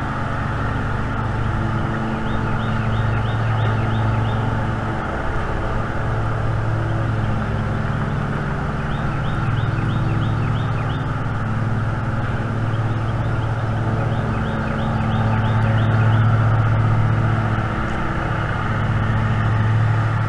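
Steady low drone of an engine running, swelling and easing slightly. A small songbird's quick high trill breaks in three times.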